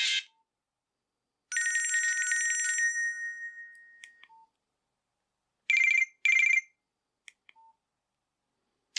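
Nokia 6600 slide phone's loudspeaker playing short ringtone sounds between silences. A held electronic tone starts about a second and a half in and fades over a couple of seconds. Two quick bright telephone-style ring beeps follow near the middle, then a few faint clicks.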